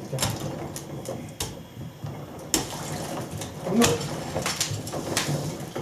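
A metal hook knocking and scraping among frozen chunks in a plastic tub: a run of irregular sharp clicks and knocks.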